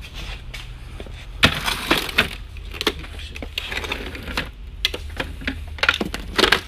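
Irregular knocks and clatters of hard plastic parts from a canister vacuum cleaner being handled and moved about, the loudest cluster near the end, over a steady low hum.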